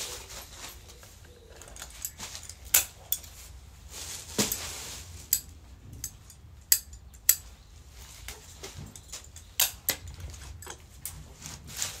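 Leafy woody branches being handled and set into a large ceramic vase: a string of sharp clicks and snaps from the stems, with a short burst of leaf rustling about four and a half seconds in.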